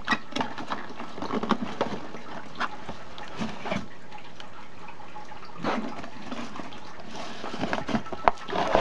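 Cardboard box and packaging being handled: short bursts of rustling and scraping with light clicks and knocks in between, louder near the end.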